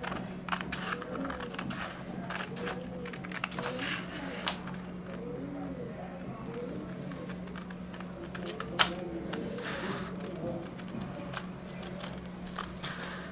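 Scissors cutting a sheet of paper: a string of irregular snips and paper rustles, one sharper snip about nine seconds in, over a steady low hum.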